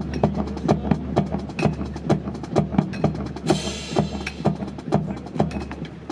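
Sharp wooden clacks, about four a second in an even rhythm, from a drill team's rifles being slapped and handled in unison during a precision rifle drill. A brief hiss comes about three and a half seconds in.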